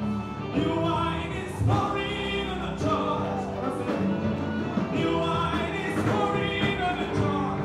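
Live gospel music: several voices singing together over instrumental accompaniment, with notes held and moving in steady phrases.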